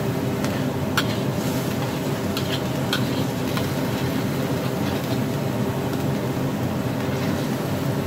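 Metal wok spatula stirring and scraping minced pork around a wok, with a few sharp scrapes against the pan about one to three seconds in. Steady sizzling underneath as the meat's liquid cooks off, over a constant low hum.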